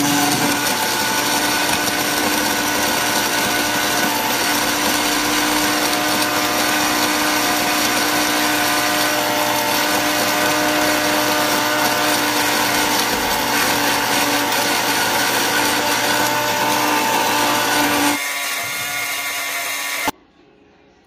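Countertop blender motor running at speed, grinding dried juice pulp into a powder in its glass jar. It runs steadily, gets quieter with a change in tone about 18 seconds in, and cuts off abruptly about two seconds later.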